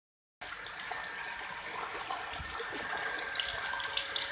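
Heavy rain falling: a steady rush of water that begins about half a second in.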